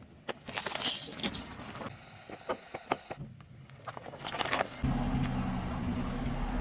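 A car tyre rolling slowly over small objects on asphalt and crushing them, with bursts of crackling and crunching and scattered sharp clicks. From about five seconds in, a steady low hum of the car's engine takes over.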